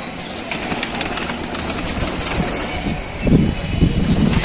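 Highflyer pigeons flapping their wings as they take off and fly about inside a netted rooftop loft. It is a rapid flutter of wingbeats, with a louder flurry about three seconds in.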